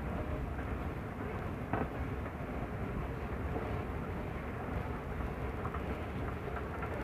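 Steady low rumble of a moving walkway running through a long underground passage, with a short click just under two seconds in.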